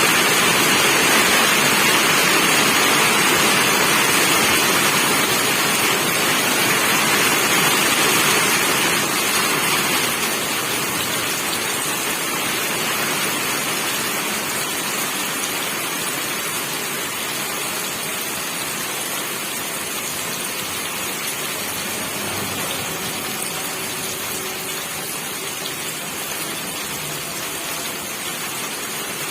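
Steady rain falling, an even hiss that eases a little after about ten seconds.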